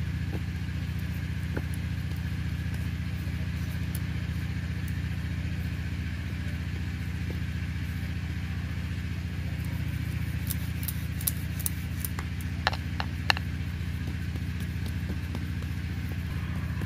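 A steady low mechanical hum, with a few light clicks and taps in the second half.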